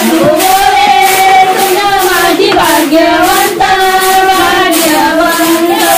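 Women singing a traditional Marathi wedding song together in long held notes, with a fast, even swishing beneath from rice being winnowed in flat trays.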